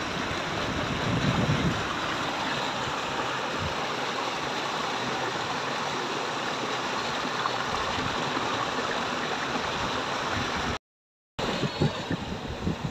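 Water rushing steadily out of a drainage sluice into a channel, with wind buffeting the microphone in the first couple of seconds. Near the end the sound cuts out briefly, then a few thumps follow.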